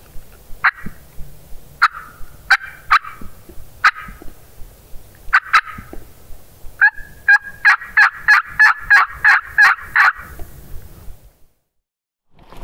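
Turkey mouth call blown by a hunter, imitating a hen wild turkey: scattered single clucks and yelps, then a fast, even run of about ten yelps. The calling stops and the sound drops out near the end.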